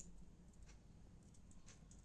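Near silence with a few faint, light clicks.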